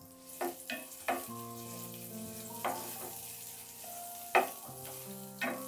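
Chopped onion sizzling in hot olive oil in a nonstick pot as a wooden spatula stirs it, with several knocks of the spatula against the pan, the loudest about four seconds in. Soft background music with held notes plays underneath.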